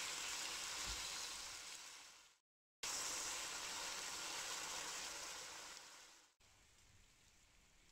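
Thin slices of beef short rib frying with chopped scallions in a wok, a steady sizzle. It fades and cuts out briefly about two and a half seconds in, comes back and fades again, and about six seconds in gives way to faint room tone.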